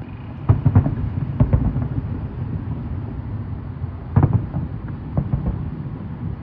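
Aerial firework shells bursting at a display. Clusters of booms come about half a second in, again at one and a half seconds, and again around four seconds, over a continuous low rumble.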